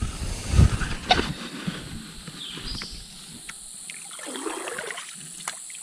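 Handling noise in a canoe as a freshly landed machaca is held up: a low thump about half a second in, then scattered knocks and clicks.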